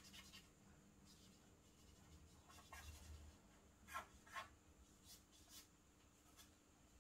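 Faint scratching of a charcoal stick on drawing paper: a few short strokes, the two clearest close together about four seconds in.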